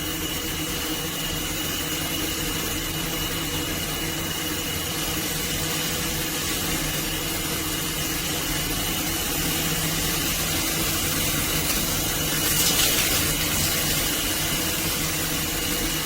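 Shower head spraying water: a steady hiss with a faint, steady high whistle, swelling slightly near the end.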